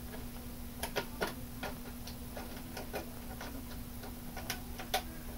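Faint, irregular metal clicks and taps of a bolt being worked by hand through the clevis end of an air cylinder and a pipe fitting.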